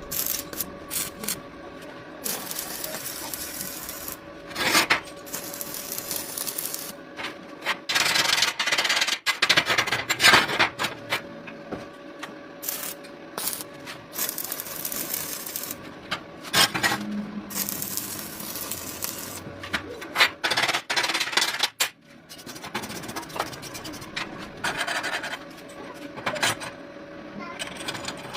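Metal being rasped and scraped by hand in irregular strokes, with a faint steady hum underneath.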